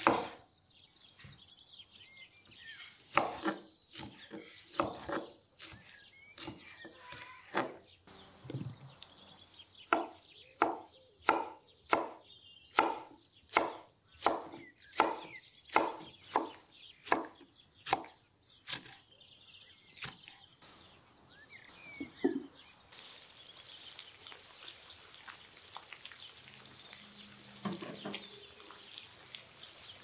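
Chef's knife chopping bell peppers and a red chili on a wooden cutting board: sharp knocks of the blade on the board, uneven at first, then a steady run of about one and a half strokes a second. About two-thirds of the way in the chopping stops and an even hiss of meat sizzling in a hot pot takes over.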